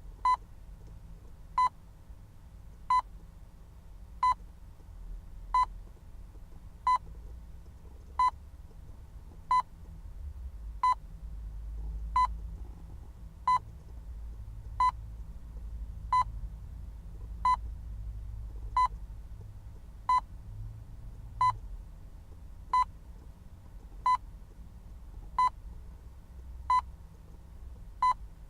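Hospital patient monitor beeping at a steady pace, one short high beep about every 1.3 seconds, each beep marking a heartbeat. A faint low rumble runs underneath.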